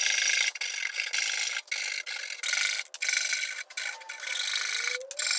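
Hand saw cutting a mitre across the end of a softwood board. It is a run of rasping strokes, each a hiss lasting about half a second to a second, with short breaks between.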